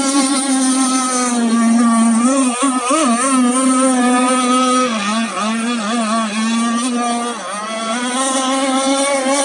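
Small engines of radio-controlled model racing catamarans running at high revs. It is a steady high-pitched drone whose pitch wavers and dips briefly a few times as the throttle is eased and opened again.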